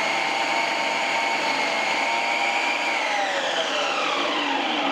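Preethi Zodiac mixer-grinder motor running at speed, spinning the grating disc of its food-processor attachment while a carrot is pushed through and shredded. A steady, loud whine that drops in pitch from about three seconds in.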